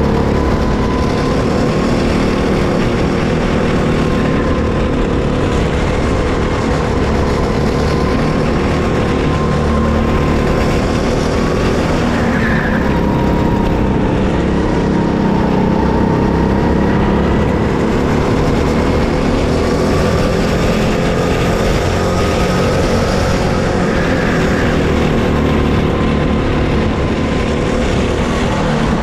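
Racing kart's engine running under load, heard onboard, its pitch rising and falling slowly with throttle and speed through the corners, over a steady rush of wind and tyre noise.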